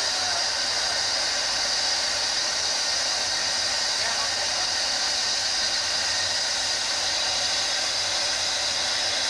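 Ffestiniog Railway Double Fairlie steam locomotive hissing steam in a steady, unbroken rush, with no exhaust beats.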